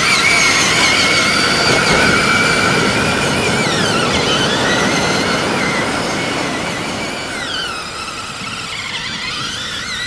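Battery-powered electric motor and gears of a large toy RC monster truck whining as it drives over sand, the pitch dropping and rising again twice as it slows and speeds up.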